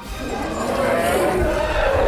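A dragon's long, wavering cry that rises and falls in pitch, lasting most of two seconds.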